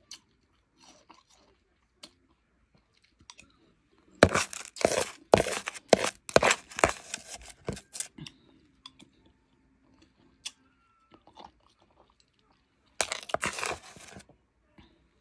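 Crunching of fresh blended, powdery ice being chewed, close to the microphone: a run of about ten crunches, roughly two or three a second, lasting about four seconds, then a shorter burst of crunching near the end.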